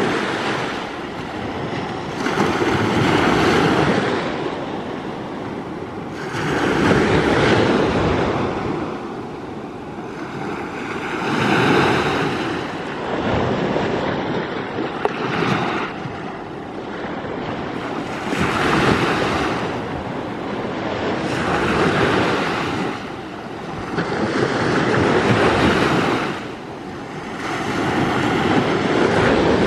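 Small Baltic Sea waves breaking and washing up a sandy shore, each surge swelling and falling away every three to four seconds.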